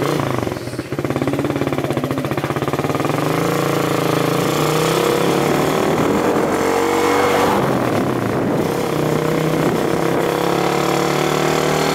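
Suzuki Raider R150 motorcycle's single-cylinder four-stroke engine running under way as the bike rides off, its note rising and dipping as it accelerates, with wind rushing on the onboard microphone.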